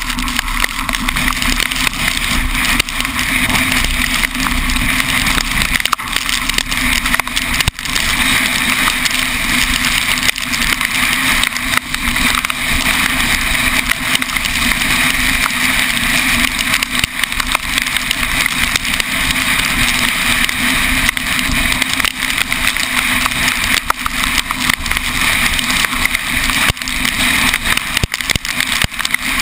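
Steady rush of wind and road noise over a camera mounted outside a moving vehicle, with a gusty low rumble.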